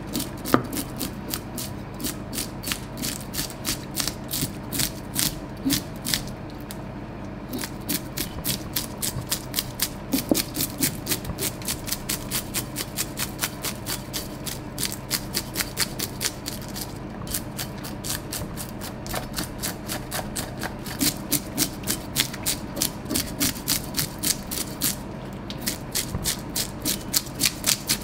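Toothed brass fish scaler scraping the scales off a whole kinmedai (splendid alfonsino) on a plastic cutting board: quick repeated scraping strokes, several a second, pausing briefly a few times.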